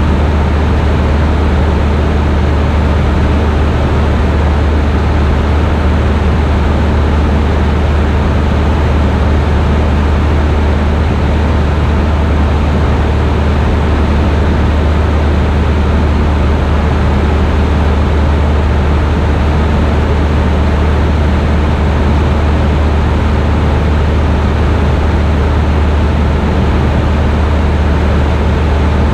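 Steady drone of a single-engine Cessna's engine and propeller in flight, heard inside the cabin: a strong low hum under an even rushing noise, unchanging throughout.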